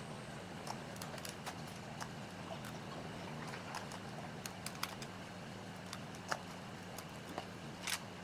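Rubber bands snapped one after another onto a paper tube, a series of light irregular clicks and snaps, with one sharper snap near the end, over a steady low hum.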